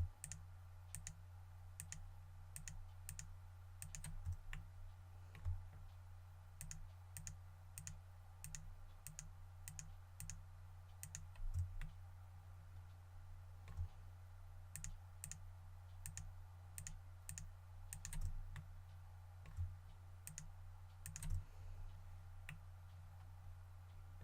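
Computer mouse and keyboard clicking at irregular intervals, one or two clicks at a time, while faces are picked out one by one in a 3D modeling program. A steady low electrical hum lies under the clicks.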